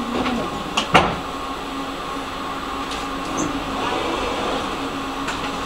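Interior of a tram standing at a stop: a steady hum from the tram's on-board equipment, with two sharp knocks about a second in and another near the end.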